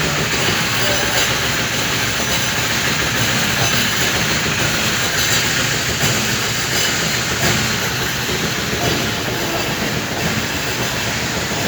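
Septic vacuum truck running its suction, a steady, continuous rushing hiss as the hose draws waste out of the tank.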